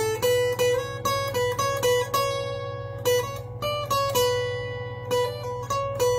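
Acoustic guitar playing blues, a run of plucked notes and chords with a new note every few tenths of a second.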